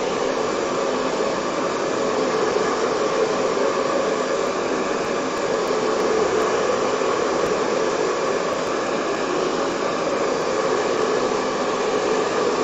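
Noisy handheld heat gun running steadily, blowing hot air onto the board to dry wet watercolour paint.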